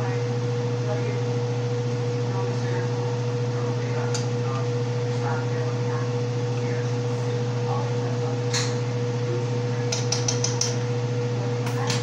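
Steady mechanical hum with a constant tone, from a running kitchen appliance such as a fan or microwave. Over it, a few metal utensil clinks against a cooking pot, with a quick run of about five taps roughly ten seconds in.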